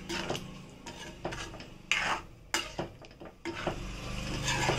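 Metal spoon stirring a thick kurma gravy in a non-stick pan, with irregular scrapes and knocks of the spoon against the pan.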